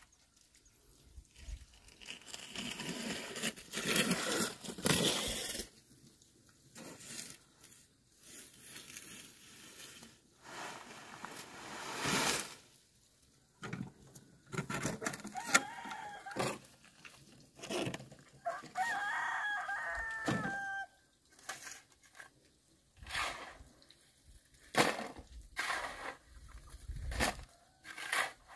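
A rooster crowing: a short call about halfway through, then one long crow of about two seconds near the end. A few seconds of scraping noise come near the start, and sharp knocks are scattered throughout.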